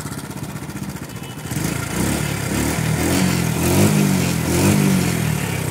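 TVS XL100 BS6 moped's single-cylinder four-stroke engine ticking over, then revved up about one and a half seconds in and opened and closed several times. It reaches full revs cleanly, the sign that the misfire is gone now that the correct magneto set is fitted.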